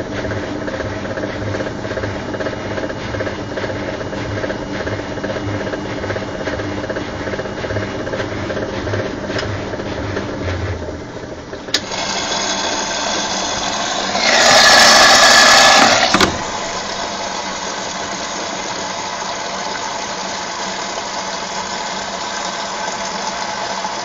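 Philips Whirlpool front-loading washing machine running with a steady mechanical hum and a low pulsing throb, during its first rinse cycle with an intermediate spin. About twelve seconds in there is a click, then a louder rushing noise that peaks for about two seconds before settling to a steadier, lower running sound.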